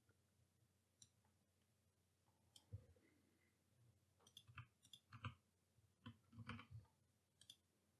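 Near silence with a few faint computer mouse clicks, scattered from about a third of the way in.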